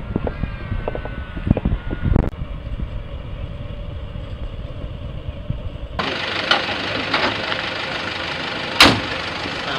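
Low rumble of a passenger train moving away along the track. After a sudden change, a military utility vehicle's engine is idling, with one loud slam about nine seconds in, its door shutting.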